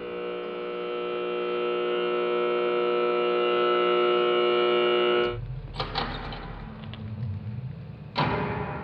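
A sustained musical drone, one held note rich in overtones, slowly swelling and then cutting off suddenly about five seconds in. Footsteps and light knocks on the stage floor follow over a low hum.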